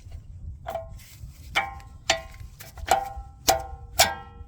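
Steel brake parts clinking together while front brake pads are fitted: about six sharp metallic clinks, each with a brief ringing tone.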